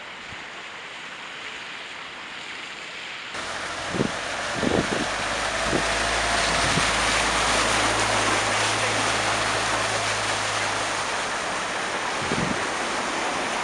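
Iveco delivery van driving through deep floodwater, its wheels throwing up a loud, continuous rushing splash over the low hum of its engine. A few thumps come about four to five seconds in. Before that, a quieter steady wash of water noise.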